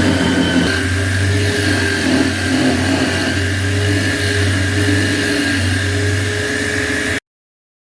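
Electric drill motor running steadily, driving a homemade drill-powered lathe, with a low hum and a steady whine. It cuts off abruptly about seven seconds in.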